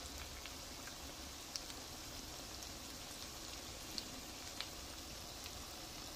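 Oil sizzling steadily around silverfish ukoy fritters shallow-frying in a pan, with a few sharp pops and crackles.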